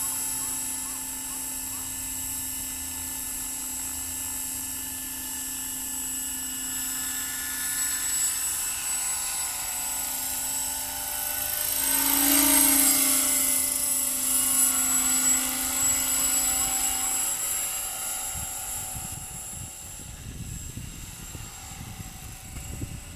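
Trim Corporation Accurate 550 radio-controlled helicopter in flight, with a steady whine from its rotor and drive. It grows loudest as it passes close about halfway through, its pitch sweeping down, then fades away. A low rumble comes in near the end.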